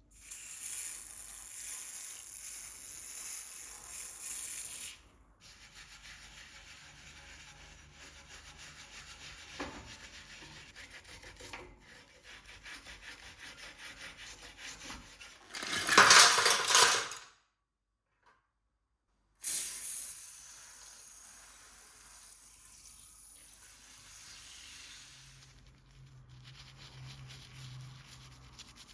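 Rubbing and sanding on small model car parts, in several edited stretches, with a short, much louder burst of noise about sixteen seconds in.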